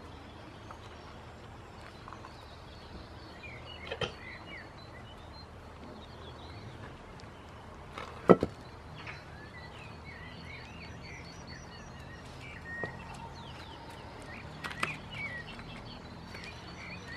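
Outdoor birds chirping over a steady low background hum, broken by a few hard knocks, the loudest about eight seconds in, with a smaller one about four seconds in and another near fifteen seconds.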